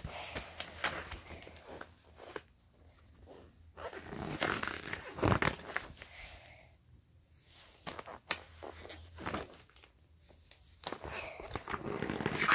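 Pages of a paper booklet being turned and handled, rustling in several bursts with quieter gaps between.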